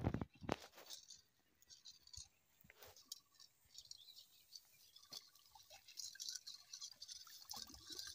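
Quiet outdoor ambience: a few short, soft knocks in the first second, then faint high-pitched chirping with a few short high notes.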